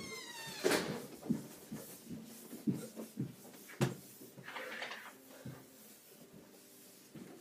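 Scattered light knocks and clicks about a second apart over a low steady hum. A descending squeak-like whistle comes right at the start.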